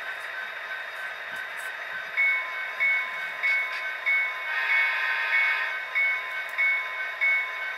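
Tsunami digital sound decoder in an HO-scale model EMD diesel locomotive, played through its small onboard speaker: the diesel engine idling steadily. About two seconds in, the locomotive bell begins ringing, roughly one and a half strokes a second.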